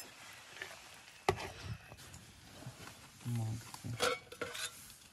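A metal spoon stirring and scraping through cooked noodles in a steel pot, with a few sharp clinks against the metal.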